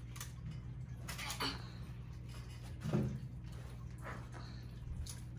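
Quiet eating and food-handling at a table: a few short, faint knocks and rustles, the loudest about halfway through, over a steady low hum.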